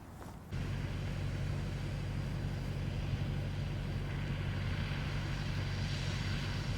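An engine running steadily with a low hum, starting abruptly about half a second in, under a broad hiss that grows stronger over the last few seconds.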